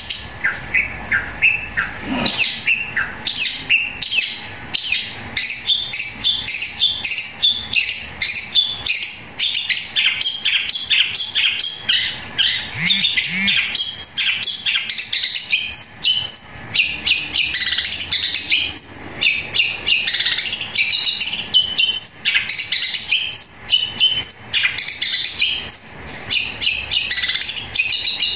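Caged long-tailed shrike (cendet) singing a long, loud, unbroken run of rapid chirps and chatter. The song mimics the fighting calls of Eurasian tree sparrows.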